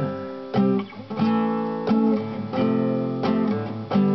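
Classical acoustic guitar strummed in a steady rhythm, a chord struck about every two-thirds of a second and left ringing between strokes.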